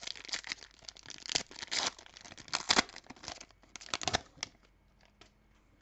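A foil trading-card pack being torn open and its wrapper crinkled: a run of short rips and rustles for about four seconds that then stops.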